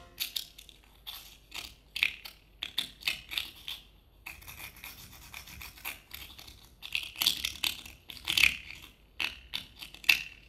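Celery stalks being twisted and snapped by hand as a foley effect for a bone breaking: an irregular string of short crackling snaps and scraping rubs, in clusters.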